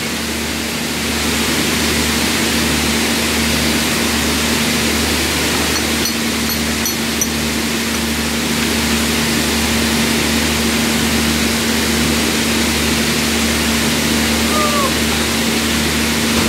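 Factory machinery running steadily: a constant hum over a low rumble that pulses slightly, with an even hiss, and a few faint metallic clicks about six to seven seconds in.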